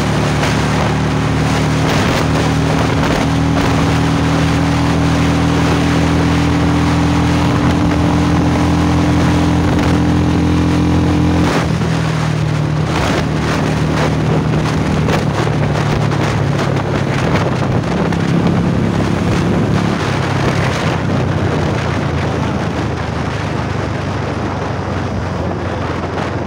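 Royal Enfield Bullet 350's single-cylinder engine, breathing through a short-bottle silencer, running hard at speed with wind noise on the microphone. Its pitch climbs slowly, then drops suddenly about eleven seconds in as it shifts up a gear. The engine runs on at lower pitch and eases off toward the end.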